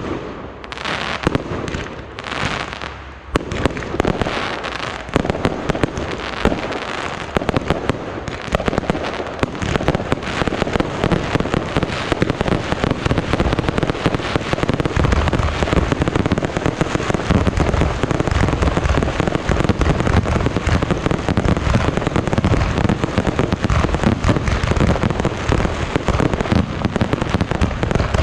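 Fireworks display: a few separate bangs in the first few seconds, then a dense, continuous barrage of rapid bangs and crackling.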